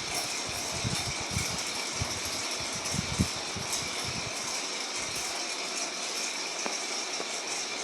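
LG top-load washing machine running with a steady whir. Irregular low knocks and rattles come mostly in the first few seconds, the sharpest about three seconds in: the abnormal noise the machine is being repaired for.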